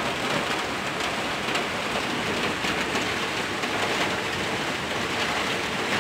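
Heavy monsoon rain falling steadily on a street and the surfaces around it: a dense, even hiss of rain.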